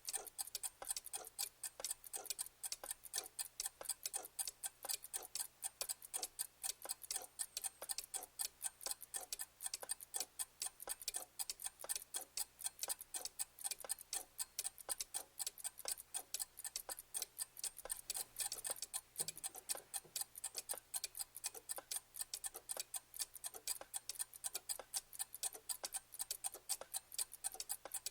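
Clock ticking in a rapid, even rhythm of sharp ticks.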